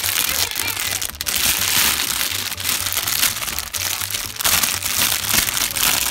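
Clear plastic bag crinkling and rustling continuously as it is handled and pulled open around a plush toy, over a low background music beat.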